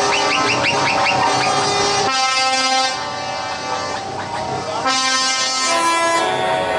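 Truck air horns sounding in long chords of several notes at once, the pitch of the chord shifting every second or so.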